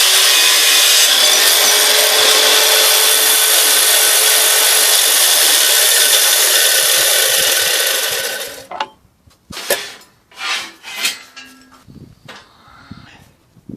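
Angle grinder running and cutting sheet material, a steady loud cut that dies away about eight and a half seconds in. A few separate knocks and clatters follow.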